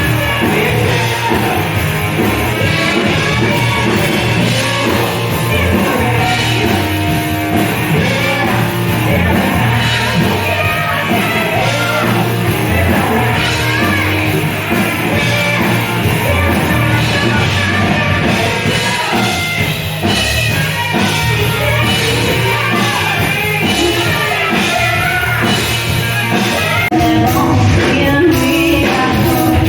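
Rock music with a singing voice, playing continuously with a steady beat.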